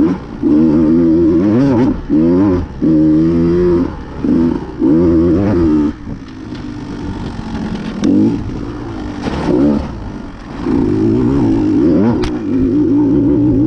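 Off-road dirt bike engine revving hard in repeated bursts on and off the throttle, with short lulls between, then held on the throttle at a steady, wavering pitch for the last few seconds. A couple of sharp clicks sound over it.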